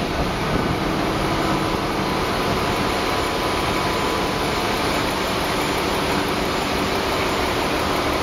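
Steady noise of the machinery running in a river cruise ship's engine room.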